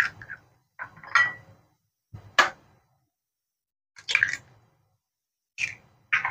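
A hen's egg being cracked by hand over a ceramic bowl: about half a dozen short, sharp taps and crunches of eggshell, spaced out with silent gaps.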